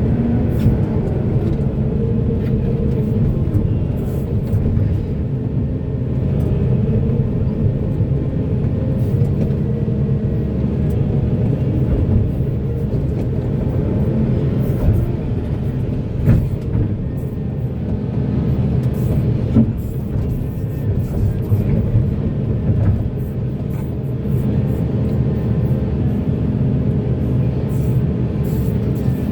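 Heavy diesel earthmoving machinery, a large excavator and dump truck, running steadily under load, with scattered sharp knocks and clanks.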